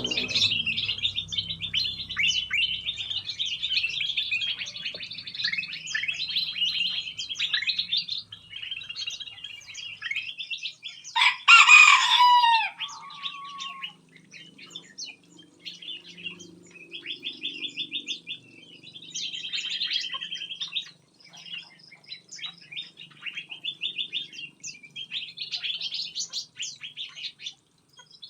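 Many small aviary birds chirping and trilling in quick, high notes throughout, with one loud rooster crow about eleven seconds in that slides down in pitch and trails off.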